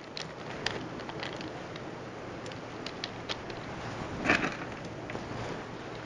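Coarse orchid substrate of pine bark chips and limestone gravel rustling and clicking as it is worked by hand into a plastic pot around the roots, with a louder crunch about four seconds in.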